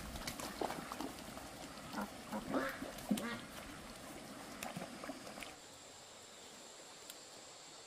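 A flock of domestic ducks quacking and calling in short, scattered calls on a shallow stream. The calls stop about five and a half seconds in, leaving only a faint steady hiss.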